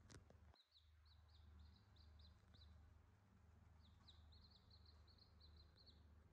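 Newborn chicks peeping faintly: short, high chirps in quick runs of about three or four a second, with a pause of about a second near the middle. A faint click sounds at the very start.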